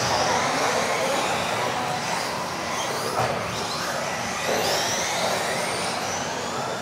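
Several radio-controlled off-road racing cars driving around an indoor carpet track: the high whine of their electric motors rising and falling in pitch as they accelerate and brake, overlapping one another.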